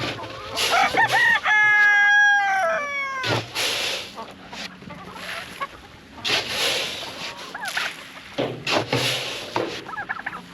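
A rooster crows once, about a second and a half in: one long call that holds and then falls away at the end. Hens cluck now and then, and several bursts of rustling noise come and go.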